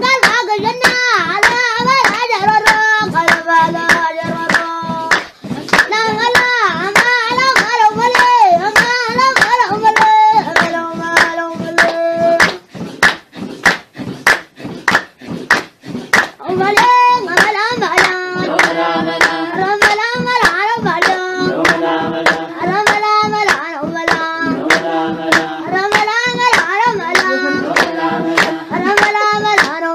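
A group singing a traditional clapping song to brisk, steady handclaps. A few seconds past the middle the singing drops out for about four seconds, leaving the clapping alone, then comes back.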